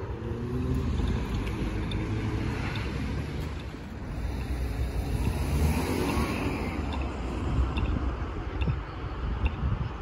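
City road traffic: cars passing on the street alongside as a low, steady rumble, with one vehicle growing louder about halfway through.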